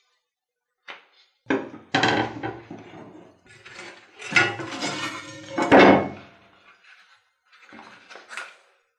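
Old leather-and-wood handle being worked loose and pulled off the rusty iron tang of a hand-forged cleaver on a wooden workbench: a run of knocks, clunks and scraping as the blade and handle pieces shift against the bench, loudest a little before the middle.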